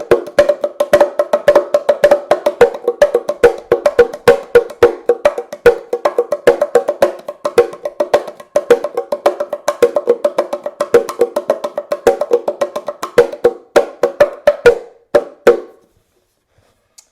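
Bongo cajon, a wooden box drum, played by hand: a fast, steady run of strikes with a woody, pitched ring. The playing slows to a few last strikes and stops near the end.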